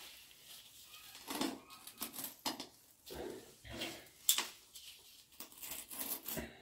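Ceramic wall tiles being pressed and shifted into tile adhesive by gloved hands: a string of short, irregular scrapes and taps.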